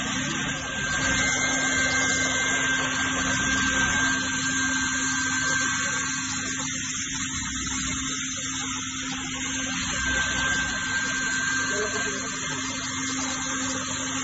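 LIUDU TOP3400C automatic hot-air welder running as it welds a PVC membrane seam: a steady blower hum and rush of hot air, with a steady whine.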